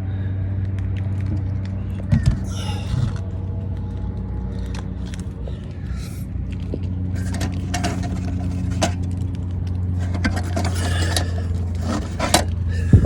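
A steady low machine hum runs throughout, with scattered clicks, light scrapes and knocks from parts being handled; one loud knock comes near the end.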